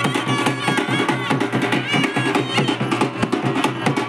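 Band music: fast, steady drumming with a melody instrument playing over it.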